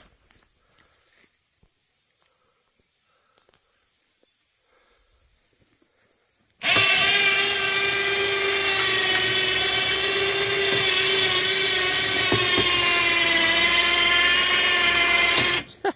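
Small electric motor starting suddenly and running steadily under load for about nine seconds as a whine with a slight waver, then cutting off.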